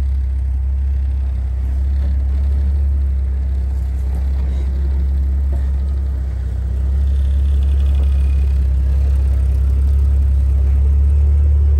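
Lifted Jeep Grand Cherokee's engine running at low speed as it crawls over rocks, a steady low rumble that grows louder about seven seconds in as the vehicle comes right alongside.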